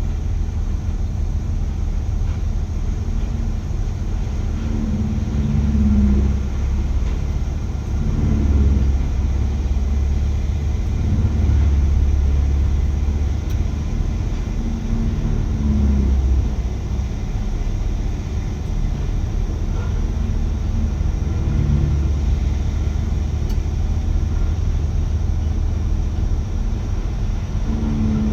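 Diamond Z 1463 wood grinder's big diesel engine running under load, with a deep rumble that swells for a second or two several times as it grinds material into mulch.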